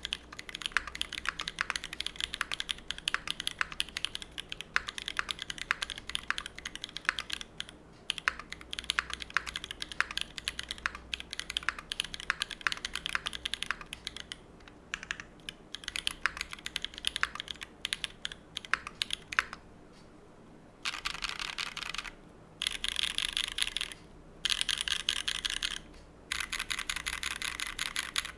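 Typing on a Monokei Kei R2 mechanical keyboard with tactile Holy Panda switches, GMK keycaps and a brass plate. The brass plate gives a metallic ping. Fast, steady typing gives way, after a brief pause, to four bursts of very rapid keystrokes.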